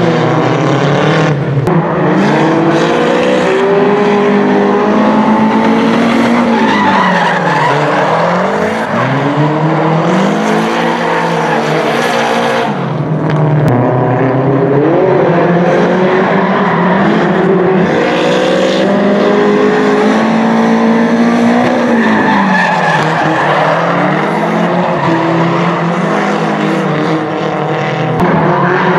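Two Nissan S13 drift cars tandem drifting: their engines rev up and fall back over and over, with tyres squealing and skidding.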